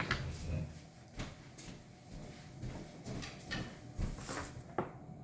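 Light knocks, clicks and rustling of a person getting up from a table and moving away, scattered one at a time over faint room noise.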